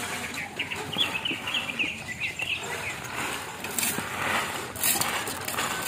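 Roasted peanuts rustling and rattling as they are rubbed by hand in a woven bamboo winnowing tray to loosen their skins, with a few sharper clicks. A bird chirps a quick run of short notes in the first half.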